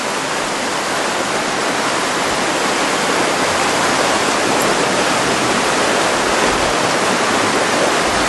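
Rushing water of a rocky stream, a loud, steady rush with no break.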